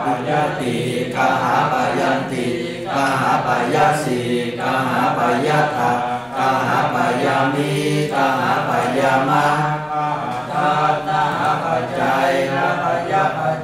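Voice chanting Pali in a steady, sing-song recitation with hardly a break, the chanted review of verb forms.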